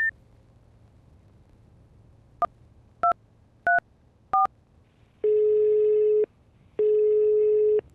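Telephone call being placed: four short keypad tone beeps, then two long ringback tones as the line rings at the other end.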